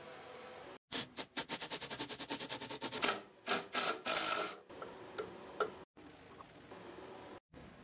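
Cordless impact driver hammering screws loose from a bench grinder's steel base plate: a fast run of sharp clicks, then a denser, louder burst of hammering that stops abruptly. A few small clicks follow near the end as loose parts are handled.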